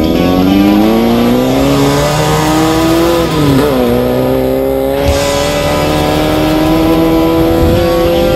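Air-cooled 1600 cc Volkswagen engine of a Class 5/1600 off-road race car accelerating hard. The revs climb, drop sharply at an upshift about three and a half seconds in, then climb steadily again in the next gear.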